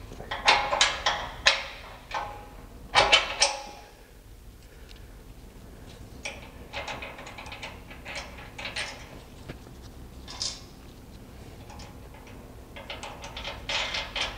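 Metal hardware clicking and clinking against a steel chassis bracket as the torque-arm slider and its bolt are fitted and turned by hand. Two short runs of rapid clicks come about half a second in and about three seconds in, followed by scattered lighter clicks.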